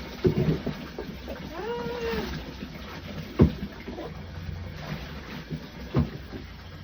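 German shepherd giving a single short whine in the bath, rising then falling in pitch, over a background of sloshing water. A couple of sharp knocks or splashes follow in the second half.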